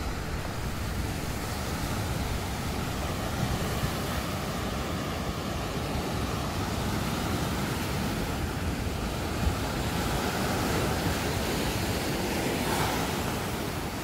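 Ocean surf: a steady rush of waves breaking and washing up a sandy beach.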